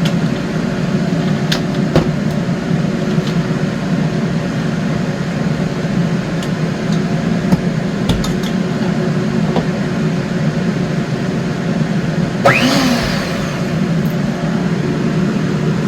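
Small electric motor of a kitchen mixing appliance running steadily as it mixes the pie filling. A brief sharp squeak about twelve seconds in.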